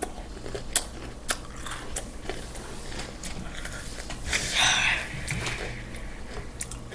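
A person chewing an Oreo cookie with the mouth closed: scattered small crunches and clicks, with a brief louder hiss about two-thirds of the way through.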